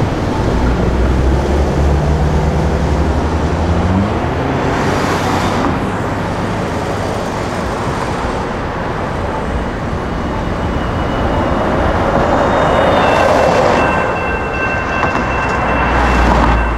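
Railroad crossing's GS Type 2 electronic warning bell ringing with the gates down, over road traffic. An engine rumbles and rises in pitch about four seconds in, and traffic noise swells near the end.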